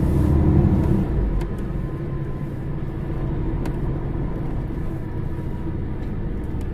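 Mercedes-Benz O550 Integro bus's diesel engine idling steadily while standing, easing a little lower about a second in, with a couple of faint clicks.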